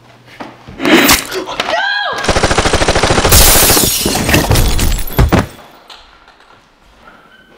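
Rapid automatic gunfire lasting about three seconds and stopping suddenly, with a sharp bang about a second in and a short rising yell just before the burst.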